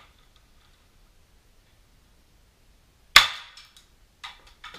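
One sharp crack of an airsoft gun shot about three seconds in, as a BB is fired at a small polycarbonate sheet from close range. A few lighter clicks follow near the end.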